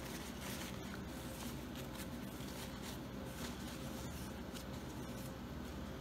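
A paper towel being handled and crumpled, giving soft, irregular rustling, over a faint steady hum.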